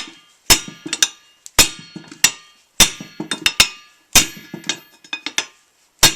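Hammer blows on a bent metal ATV wheel rim as it is straightened: about a dozen sharp metallic strikes, roughly two a second, each ringing briefly.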